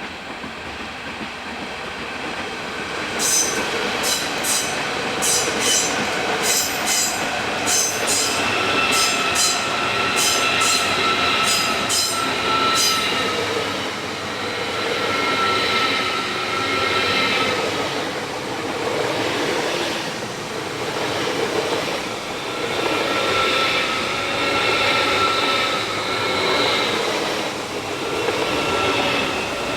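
A train running past close by, growing louder over the first few seconds. From about three seconds in, a run of sharp clicks comes for about ten seconds as the wheels cross rail joints, and high wheel-squeal tones come and go.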